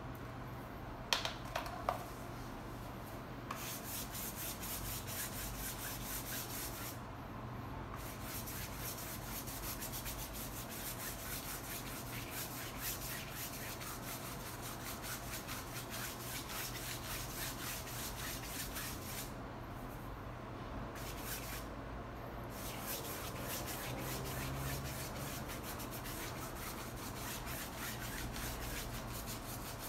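Paintbrush bristles rubbing back and forth across a painting panel, laying down a thin, watery acrylic glaze in continuous scratchy strokes. There are a few light clicks about a second in.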